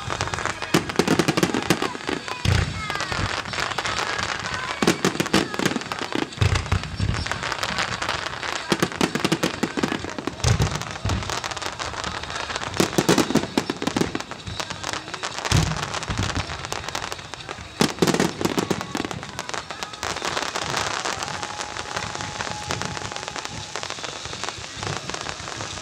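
Fireworks going off overhead: low booms every few seconds amid sharp crackling, with rain falling on umbrellas.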